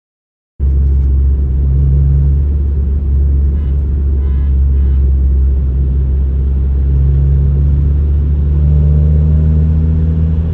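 Cars running hard in a drag race, heard as a loud, steady low rumble of engine and road noise that cuts in abruptly about half a second in.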